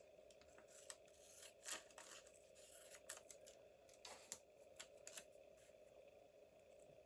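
Scissors snipping paper faintly, a scattering of short snips and paper rustles over a low steady hum.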